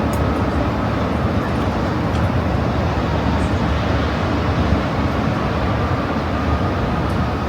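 Steady, loud low rumble of noise with no distinct events.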